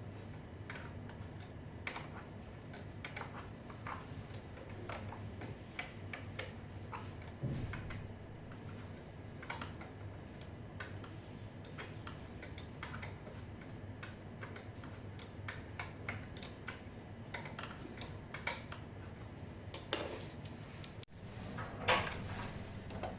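Irregular light metallic clicks and clinks of hand tools and small parts being handled during a repair, with a dull thump about seven seconds in and a louder clink near the end.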